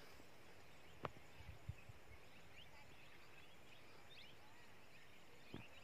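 Near silence: faint open-air background with a few soft clicks about a second in.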